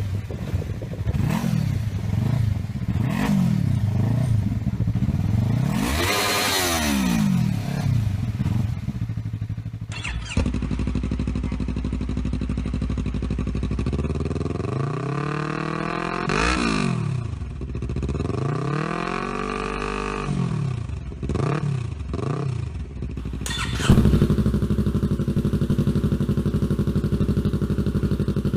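Yamaha YZF-R3's parallel-twin engine being revved over and over in short blips, the pitch rising and falling back each time. After a cut about 24 s in it holds a steady note.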